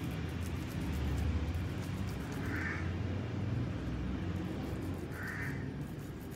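A crow cawing twice, the two short calls about two and a half seconds apart, over a steady low background rumble.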